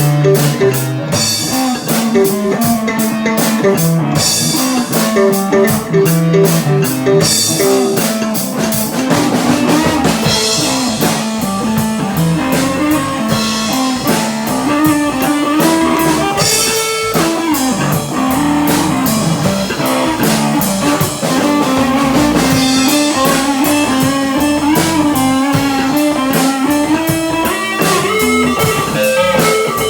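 Rock music with guitar over a drum kit, with steady drum and cymbal strokes and a melodic line that moves up and down.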